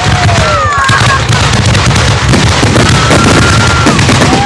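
Fireworks grand finale: a dense, continuous barrage of bursts, booms and crackling with no pause, several whistling tones sliding over it.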